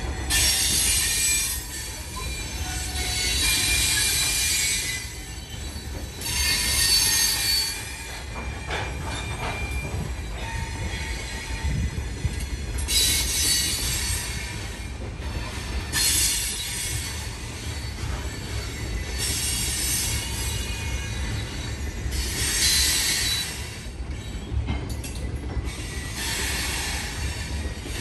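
Loaded freight train of gravel hopper cars rolling past with a steady low rumble. High-pitched wheel squeals come and go every few seconds, each lasting a second or two.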